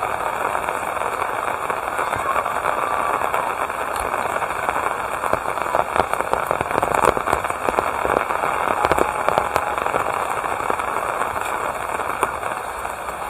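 Steady rain: a dense patter with many sharp drop hits, busiest in the middle.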